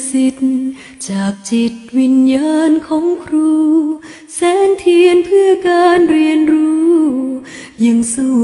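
A woman singing a song in Thai, a slow melody with long held notes and short pauses between phrases.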